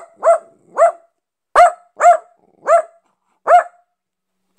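Black-and-tan dachshund barking, about seven short single barks at uneven half-second to one-second gaps.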